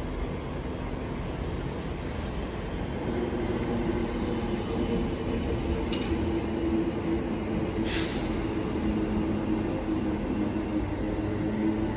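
A train running with a steady low hum of several tones that grows louder about three seconds in. A single click comes near the middle, and a short sharp hiss of air about eight seconds in.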